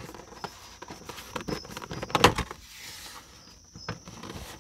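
Plastic door-sill step trim of a Toyota RAV4 being pulled up by hand: a run of clicks and knocks as the trim comes loose, the loudest a little over two seconds in.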